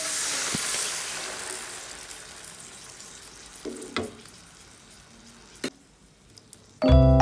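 Food sizzling in a frying pan, the hiss fading away over several seconds, with a few sharp clicks of a utensil against the pan. Piano music starts loudly near the end.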